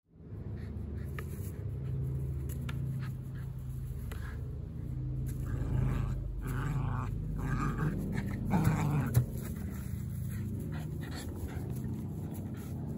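Border terrier growling in play while shaking and biting a cardboard box, with the box knocking and scraping. The growl swells about eight to nine seconds in.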